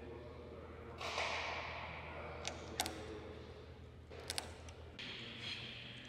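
Hands pressing a grey edge trim strip onto the edge of a painted panel: a short rustling swish about a second in, then a sharp click and, a little later, a quick double click.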